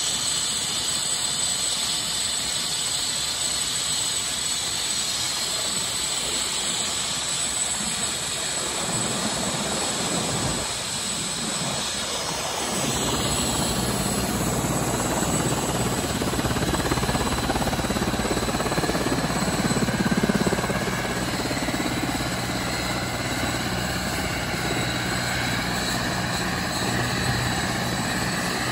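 Airbus AS355N twin-turbine helicopter running on the ground: a steady high turbine whine, with a deeper steady hum joining about halfway through.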